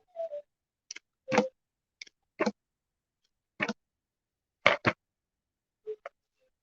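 Short, irregular clicks and taps, some in quick pairs, as a card guidebook is handled and its pages are turned.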